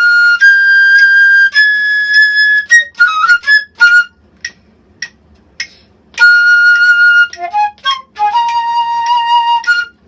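Solo flute playing high notes: long held tones, a few short detached notes with pauses between them, quick runs, and a lower held note near the end.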